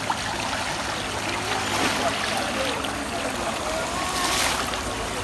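Shallow stream running over stones in a steady rush of water, with a brief swell of splashing about four seconds in and faint children's voices.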